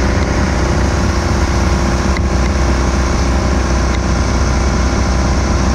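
A 1969 Land Rover Santana on the move, its engine and road noise running as a loud, steady drone with a heavy low rumble.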